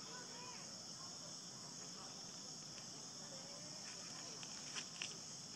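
Steady high-pitched drone of insects, with faint chirps beneath it and a couple of small clicks near the end.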